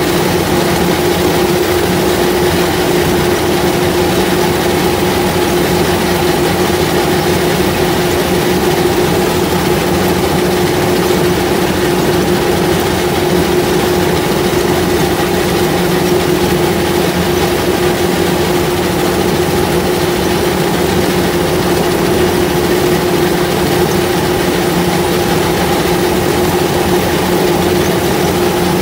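Rice combine harvester running steadily as its reel and cutter bar work through standing rice: a constant engine drone with a steady mid-pitched hum.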